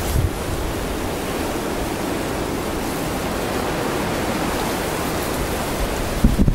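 Steady rushing wind on an exposed snowy mountainside, blowing across the camera's microphone, with a few low bumps near the end.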